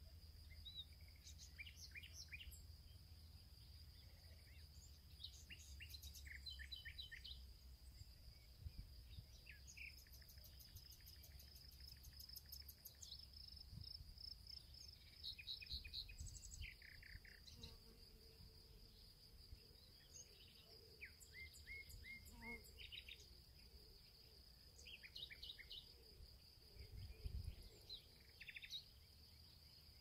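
Faint outdoor nature ambience: a steady high-pitched insect drone, like crickets, with short runs of bird chirps now and then and a faint low rumble underneath.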